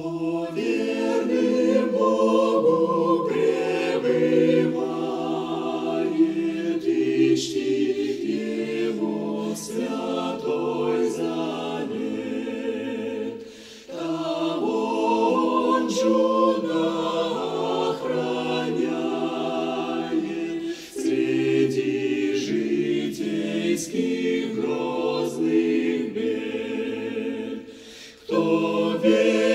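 Choir singing unaccompanied, in sung phrases with brief breaks about 14, 21 and 28 seconds in.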